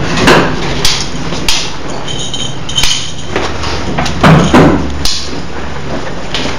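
A string of irregular knocks and thumps, about nine in all, with the loudest pair about four seconds in, over a steady low hum.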